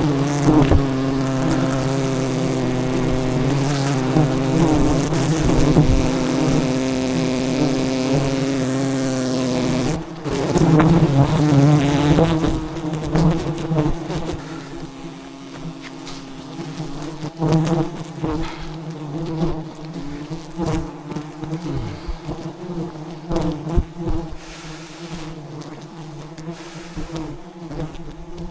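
A swarm of giant honey bees buzzing around their hive, a dense steady hum. It is loudest for about the first ten seconds, then drops away to a quieter buzz broken by scattered knocks.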